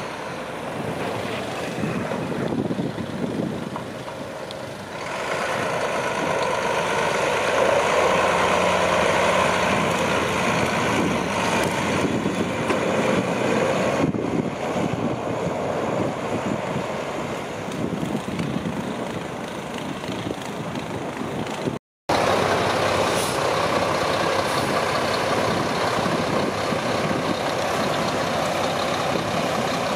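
Mack plow truck's diesel engine working steadily as the truck plows a snowy street and draws close, getting louder about five seconds in. The sound drops out for a moment about two-thirds of the way through.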